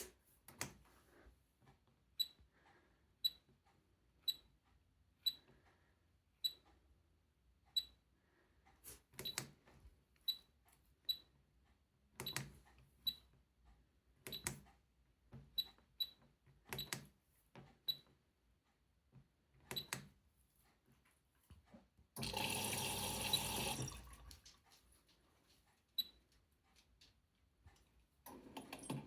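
Miele W 5740 washing machine's control panel being worked in service mode: clicks of the dial and start/stop button, many with a short high beep, roughly one a second. About three quarters of the way in, a loud rush of water runs for about two seconds, as the machine briefly lets water in.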